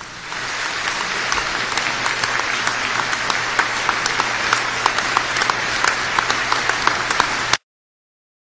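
Large crowd applauding, a dense mass of hand claps that builds up over the first second, then cuts off abruptly about seven and a half seconds in.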